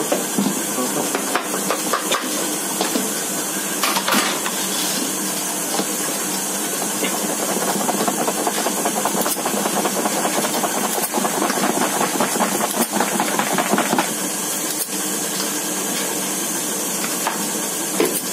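A steady hiss runs throughout. Over it come scattered clicks, knocks and scrapes as a spring-lever batter scoop works cupcake batter out of a metal pot, with a busier run of fine rapid scraping in the middle.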